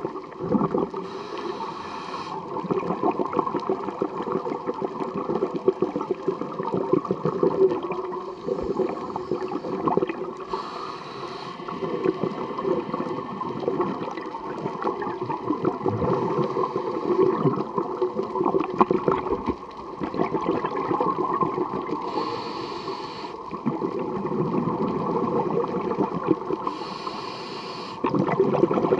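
Scuba diver breathing underwater through a regulator: a few short inhalations hiss through the second stage, and long stretches of exhaled bubbles gurgle and burble between them.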